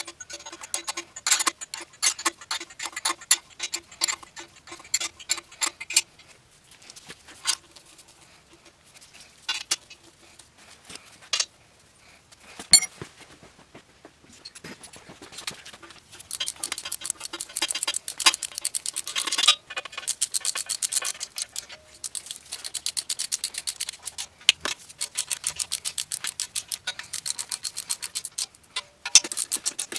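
Ratchet wrench clicking in quick runs of strokes while the exhaust header nuts are tightened, with a few separate knocks of tools in between.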